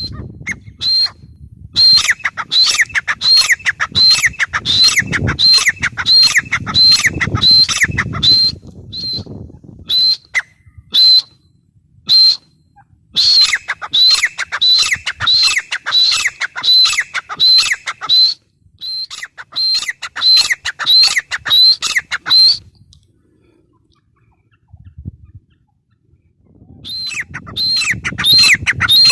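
Grey francolin calling: a fast series of loud, high, ringing notes, about two a second, in runs broken by short gaps, with a longer pause of a few seconds before the calling starts again near the end.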